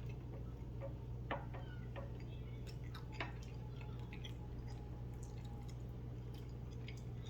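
Faint chewing and mouth clicks of a man eating, a few small sharp clicks spread through, over a steady low hum.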